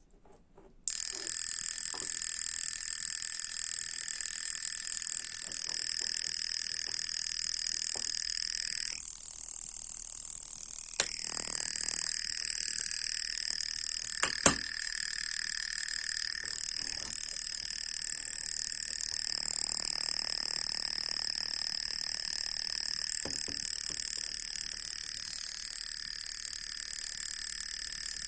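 Homemade trondol toy motorbike's small motor running through its added exhaust, giving a steady, rattling buzz meant to imitate a motorcycle engine. It starts about a second in, drops lower for about two seconds partway through, then picks up again. There is one sharp click in the middle.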